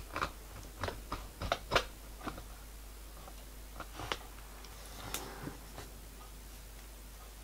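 Light clicks and taps as small turned MDF buffers are pushed onto their spring-loaded spindles on a wooden buffer beam. The clicks come quickly in the first couple of seconds, then once around four seconds in and once about five seconds in.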